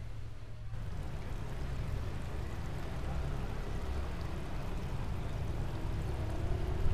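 Steady rush of flowing canal water, an even hiss, over a low rumble. It comes in about a second in and holds steady.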